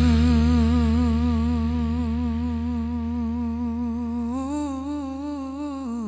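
A voice humming one long held note with a wavering vibrato over a sustained low bass tone, the whole slowly fading; the hummed note rises slightly about four seconds in. This is the closing hum of the song.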